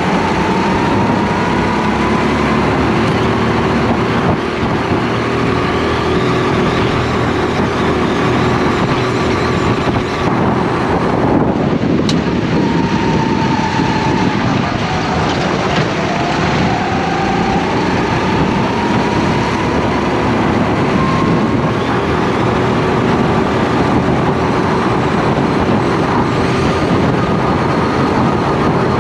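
Go-kart engine heard onboard at racing speed, its pitch climbing under full throttle, falling sharply about eleven seconds in as the kart slows for a tight corner, then climbing again as it accelerates out.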